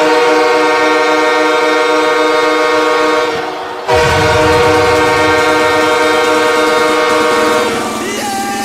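Ice hockey arena goal horn sounding two long, loud blasts, the second starting about four seconds in. Near the end the horn winds down, sliding down in pitch.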